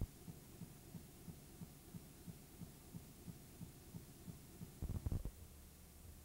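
Dead audio track of an old VHS recording: a faint low hum with soft regular thumps about three times a second, a click at the start and a short louder low rumble about five seconds in.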